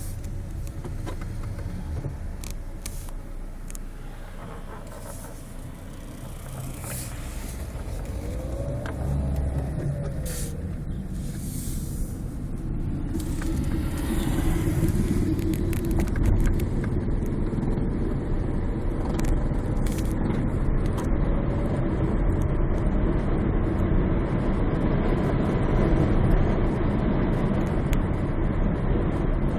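A car driving, with steady engine and road rumble that grows louder through the first half and then holds steady.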